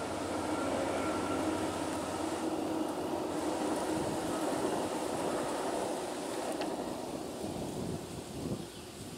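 Amtrak bilevel passenger cars rolling across a steel girder railway bridge: a steady rumble of wheels on the rails that fades away near the end.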